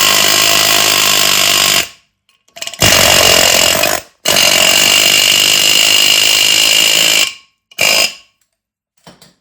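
Pneumatic air hammer rapidly hammering on a rust-seized brake rotor to break it free of the hub. It runs in four bursts: about two seconds, a second, three seconds, then a short one, with brief pauses between. A few faint clatters follow near the end.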